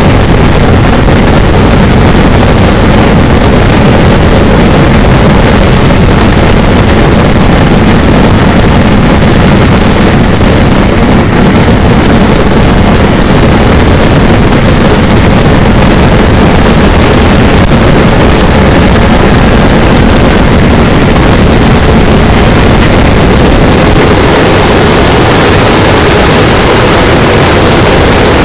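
Vedikettu fireworks in a dense, continuous barrage, the blasts running together into one steady, very loud roar with no separate bangs, pressing the microphone to its limit.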